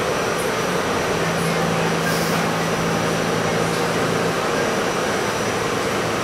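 Running noise inside an R68 subway car under way: a steady rumble of wheels on rail and traction motors, with a low hum that comes in about a second in and drops out a little past four seconds.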